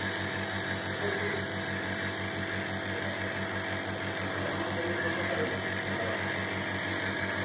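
Nebulizer's small electric compressor running with a steady, even buzzing hum.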